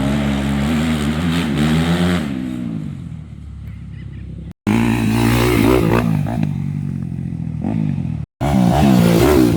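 Yamaha YZ250F dirt bike's single-cylinder four-stroke engine revving up and down as it is ridden, its pitch rising and falling. The sound cuts out abruptly twice, a little less than halfway through and near the end.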